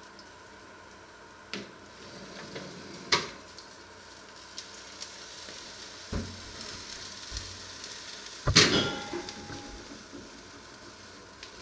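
Water from a jug hitting the hot metal of an open oven, sizzling and hissing, with a few knocks and one loud metallic clank about eight and a half seconds in that rings briefly.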